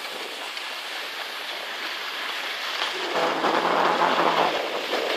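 Skis sliding over a groomed piste, a steady hiss of snow that swells louder about three seconds in.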